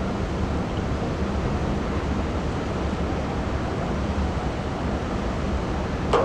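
Steady low drone of a pusher tug's diesel engine, with wind noise on the microphone. A single sharp knock sounds just before the end.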